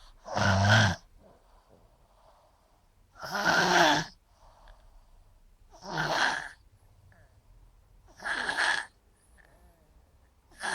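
A sleeper snoring heavily: four long snores at a steady rhythm of about one every two and a half seconds, with quiet breathing between them and a fifth snore starting right at the end.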